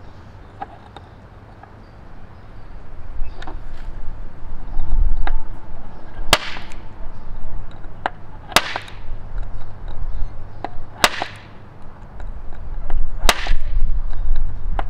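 Automatic center punch firing on a chainsaw chain rivet held in a bench block: four sharp snaps about two seconds apart in the second half, with a few lighter clicks before. It is knocking off the center-drilled rivet head so the chain link can be driven out.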